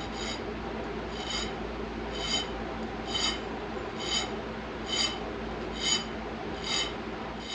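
A small round file rasping a sharpening notch into a steel ladder Damascus knife blank held in a vise. There are eight strokes at about one a second, each with a high metallic ring, over the steady rush of a shop fan.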